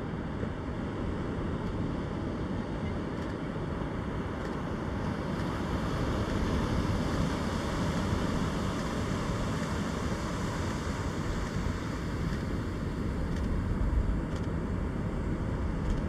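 Steady wash of surf from waves breaking on a sandy beach, mixed with wind rumbling on the microphone; it grows a little louder about six seconds in.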